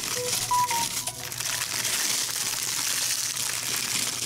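Ritz crackers crushed by hand in their plastic sleeve and crumbled out of it, a continuous crackle of crinkling wrapper and crunching crackers.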